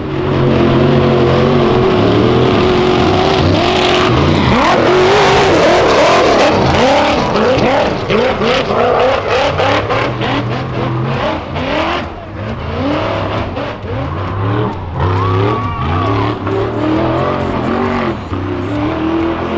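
Rock bouncer race buggies' engines revving hard, the pitch climbing and dropping again and again. About halfway through comes a run of sharp knocks and bangs.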